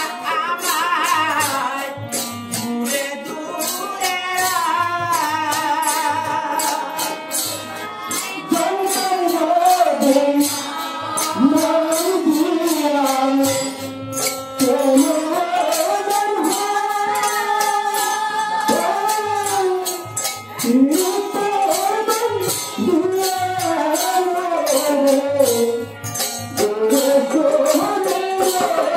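A male singer leads a Bengali devotional kirtan to his own harmonium, his voice gliding and ornamenting the melody. Steady, fast hand-cymbal strikes and low drum beats keep the rhythm.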